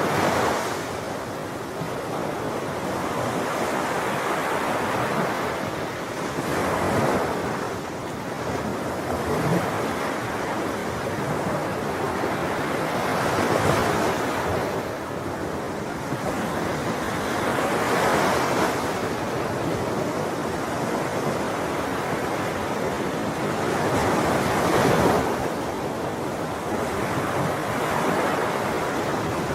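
Sea waves breaking on a shore in a steady rhythm, each wave swelling and washing out over a few seconds, about five of them, with a continuous hiss of surf between.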